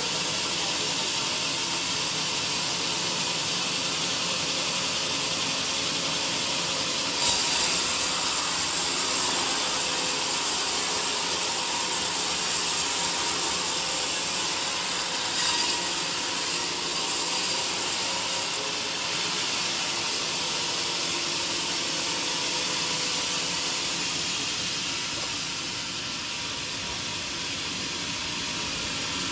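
Vertical band sawmill blade running lengthwise through a heavy joar wood beam, a steady sawing noise. A harsher high-pitched edge comes in suddenly about seven seconds in and eases off around eighteen seconds.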